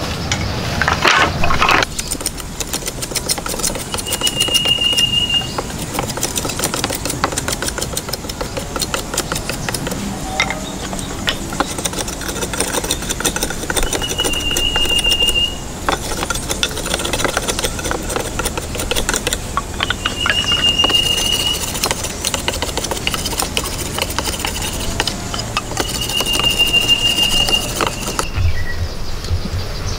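Wooden poles knocking and clattering against each other and the log floor as they are handled and laid, in many irregular clicks and thuds. A high, steady call of about a second and a half repeats four times over them.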